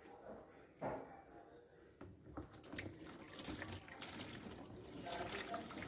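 Liquid homemade tallow soap pouring from a plastic basin into a plastic mould: a trickle that builds into a steadier splashing pour, louder over the last few seconds. A single sharp knock comes about a second in.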